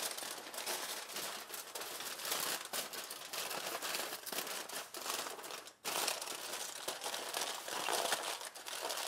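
Aluminum foil crinkling and crackling as a packet is double-wrapped: the sheet is folded over and rolled down tight in quick handling, with a brief pause a little before six seconds in.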